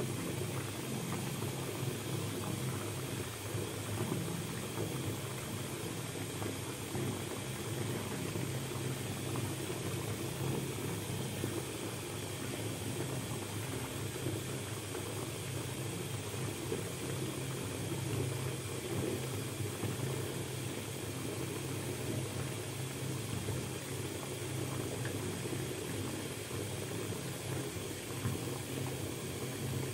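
Bathtub filling: water running steadily from the tap into the tub, a continuous low rush of water.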